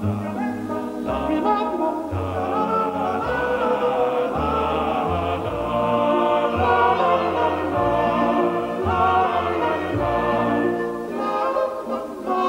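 Orchestral music with operatic-style singing and a choir, sung notes wavering with vibrato over sustained bass notes.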